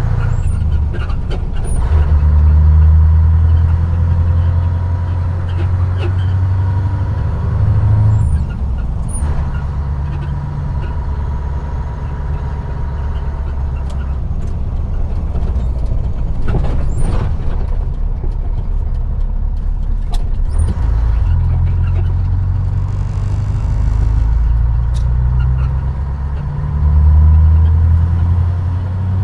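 Scania R143 500's 14-litre V8 diesel driving on the road, heard from inside the cab. Its deep engine note drops and swells again several times. There are a few sharp clicks, and a brief hiss of air about three-quarters of the way through.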